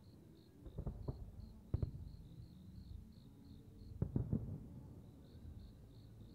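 Aerial firework shells bursting in several sharp bangs: a pair about a second in, one just before two seconds and a quick cluster around four seconds. Crickets chirp in a steady rhythm behind them.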